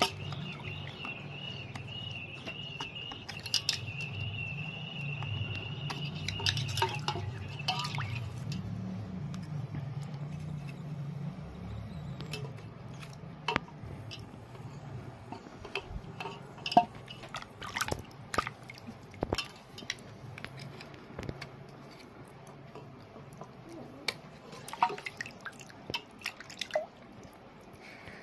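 Small kitchen knife scraping and chipping the gritty outer layer off a wet stone held over a steel bowl of water: scattered sharp clicks and scrapes with drips of water. A steady high-pitched tone and a low hum sound in the background for about the first eight seconds.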